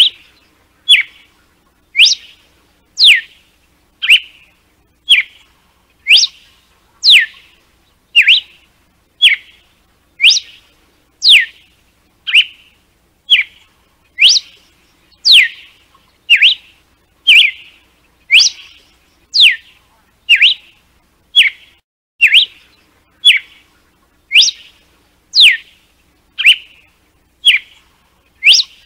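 Red-cowled cardinal (galo-de-campina) repeating its 'açoite' whip song: one sharp whistled note about every second, most of them falling steeply in pitch, with shorter, flatter notes between them.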